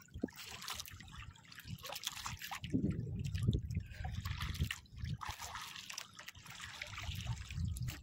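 Seawater sloshing and lapping against the hull of a small outrigger boat on a choppy sea, in uneven swells with scattered small splashes.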